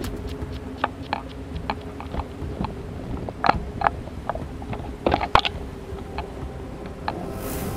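Footsteps crunching through dry leaves and twigs, with brush snapping against the body, in irregular sharp cracks and a cluster of snaps about five seconds in, over a steady low hum.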